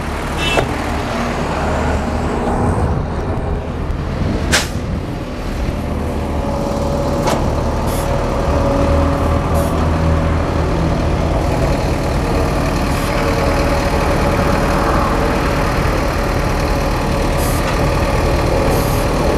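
Tow truck engine running at a raised 1100 rpm to drive the PTO hydraulic pump while the flatbed tilts up: a steady low drone. A short sharp click or hiss comes about four and a half seconds in, and a steady whine joins in about six seconds in.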